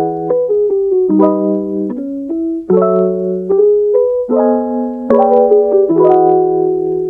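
Background instrumental music: piano chords with a melody over them, the notes changing about every half second.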